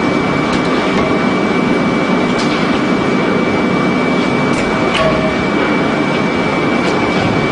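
Industrial twin-shaft shredder used for mincing meat, running with its interlocking cutter discs turning in an empty hopper. Steady loud mechanical noise with a constant high whine and a few sharp clicks.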